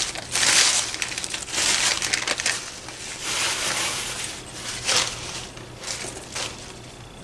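Packaging being unwrapped by hand, crinkling and rustling in several bursts about a second long, followed by a few small clicks.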